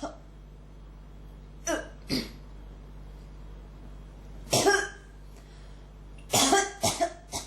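A person coughing in short fits: two coughs about two seconds in, one near the middle, and a quick run of three near the end.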